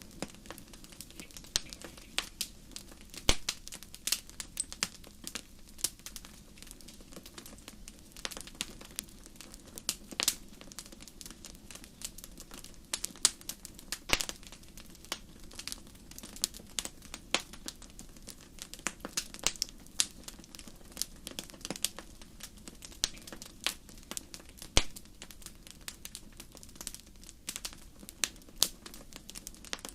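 Wood fire burning in a fireplace, crackling with frequent sharp, irregular pops and snaps over a low steady hiss.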